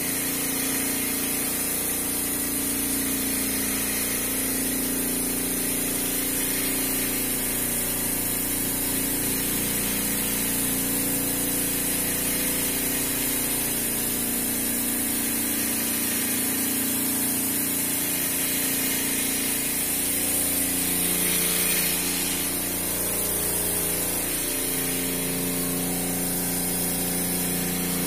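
Refrigeration unit running: a steady machine hum with a constant hiss over it, unchanging throughout.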